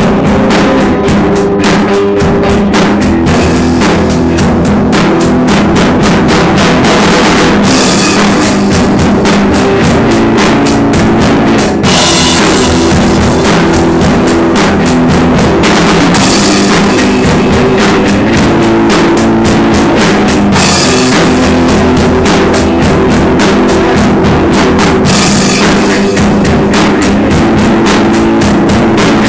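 Rock music played loud on a drum kit, with a steady beat of bass drum and snare under sustained low pitched notes, and cymbal crashes every few seconds.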